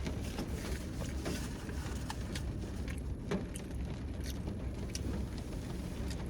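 Steady low rumble inside a car, with scattered small clicks and smacks of someone chewing food close to the microphone.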